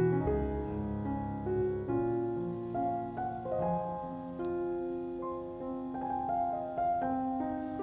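Background piano music, a gentle melody of held notes changing about every half second over a low accompaniment.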